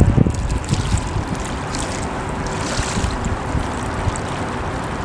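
Steady rush of wind and moving water, with a few low wind buffets on the microphone right at the start.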